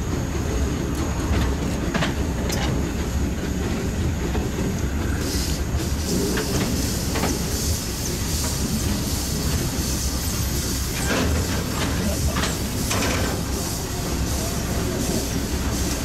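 760 mm narrow-gauge steam locomotive approaching under steam, its running mixed with steady hissing from steam blowing out at the cylinders. The hiss grows louder about five seconds in.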